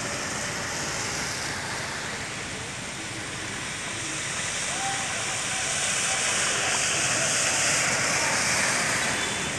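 Rain falling steadily on a wet road, mixed with the hiss of passing traffic's tyres on the wet tarmac, growing a little louder in the second half.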